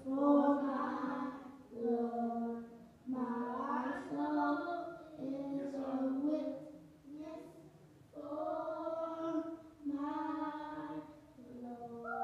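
Three young boys singing a gospel song together into microphones, in short phrases of held notes with brief pauses for breath between.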